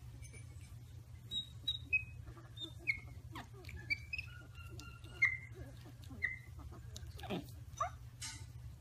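Baby monkeys giving a dozen or so short, high squeaks and chirps, scattered unevenly, with a few soft clicks over a steady low hum.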